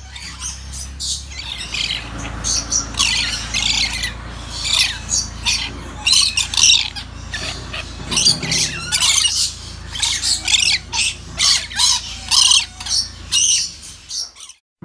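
Lories calling in an aviary: a run of short, harsh, high-pitched calls, about two a second, cut off suddenly near the end.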